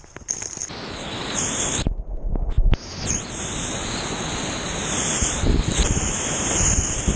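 Whitewater rapids rushing and churning around a kayak, heard close up from the boat. About two seconds in the sound briefly goes muffled with a few low thuds, then the steady loud rush of water takes over.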